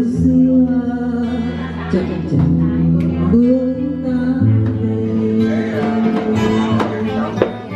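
A woman singing into a microphone over an acoustic guitar, holding long notes that change every second or two.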